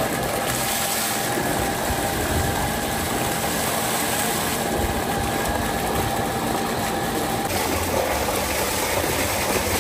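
Water gushing steadily from a pump's outlet pipe into a large tank, over a steady machine hum, with splashing as a big catfish is rinsed in the stream.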